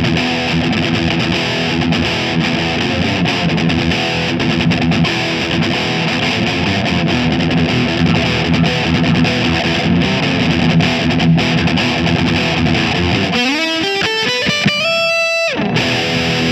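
Les Paul electric guitar played with heavy distortion through the Line 6 UX2 audio interface's built-in guitar effects: a dense distorted riff, then about thirteen seconds in a fast run of notes climbing to high held notes.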